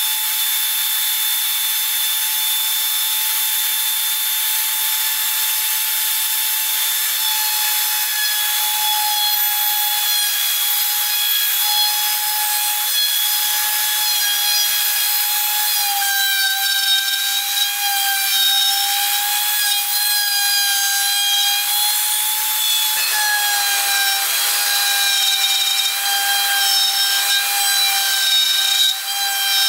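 Handheld high-speed rotary tool with a small bit cutting slots into a wood cylinder on a lathe: a steady high-pitched motor whine that wavers slightly in pitch, over the rasp of the bit in the wood.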